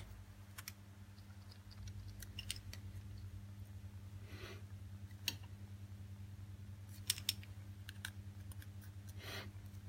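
Sparse small clicks and light taps of tools and parts being handled while a Samsung Galaxy A520F smartphone is taken apart to free its motherboard, with a couple of brief soft scrapes, over a steady low hum.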